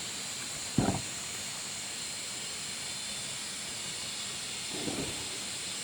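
A single heavy knock, a quick double thud, about a second in, over a steady hiss, with a softer knock near the end.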